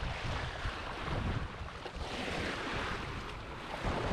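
Rushing wind-and-surf noise with rumbling low gusts, swelling about two seconds in and again near the end.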